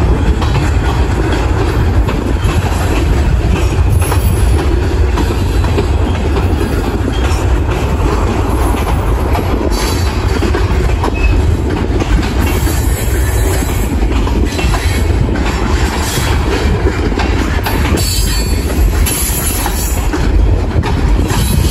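Freight cars of a Union Pacific train, covered hoppers and boxcars, rolling steadily past close by, their steel wheels running over the rails with a continuous loud rumble and scattered clicks.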